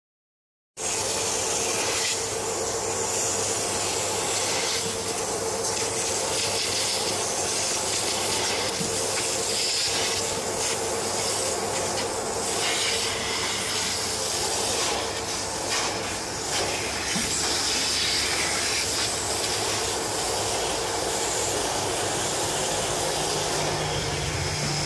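Hot-water extraction machine's vacuum pulling air and water through a Sapphire Scientific Upholstery Pro hand tool as it is worked over a car seat: a steady rushing hiss with a constant tone underneath, starting just under a second in.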